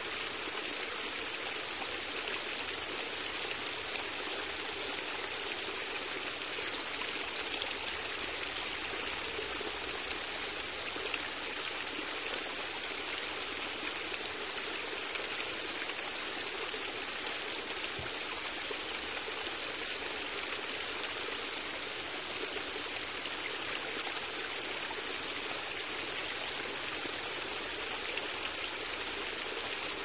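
Steady rush of running water, like a flowing stream, keeping an even level throughout.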